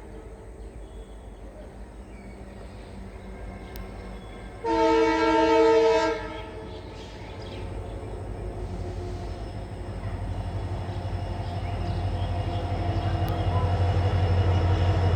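EMD WDP4 diesel locomotive sounding one horn blast of about a second and a half, a chord of several tones. Afterwards the locomotive's engine rumble grows steadily louder as the train draws near.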